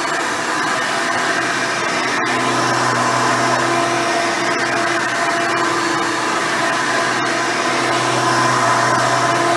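Hoover Elite 350 upright vacuum cleaner running steadily while vacuuming. It has a swapped-in modern 7-amp motor with a 7-blade fan and a dual-row bristle brush roll. Its hum shifts slightly in tone now and then.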